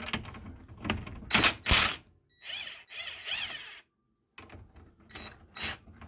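Hand tools on the steering tie-rod end's castle nut: metal clinks of a wrench and socket, two sharp knocks about a second and a half in, and a ratchet clicking.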